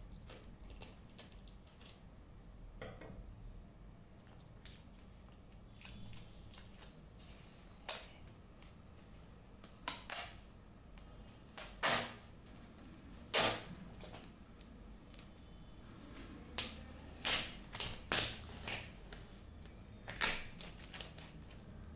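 Clear sticky tape and a plastic-coated board being pressed and handled, giving a scatter of sharp, irregular crackles and clicks, faint at first and louder from about a third of the way in.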